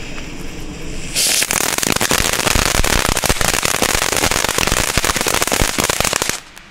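Crackling ground fountain (F1 youth firework) erupting: after about a second of quieter hissing it bursts into a loud, dense crackle of countless small pops that stops abruptly shortly before the end.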